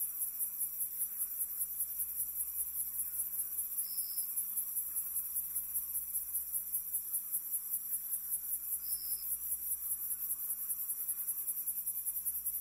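Crickets chirping steadily, about four pulses a second, with a brief higher note repeating about every five seconds over a faint low hum.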